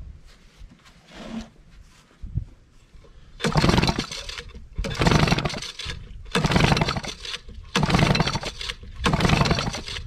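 Mariner 8 hp outboard, built by Yamaha, cranked over by its recoil pull starter five times about one and a half seconds apart, starting a few seconds in. Each pull is a short rush of the engine spinning without firing: a compression test with the spark plugs out, the throttle held wide open and a gauge screwed into a cylinder.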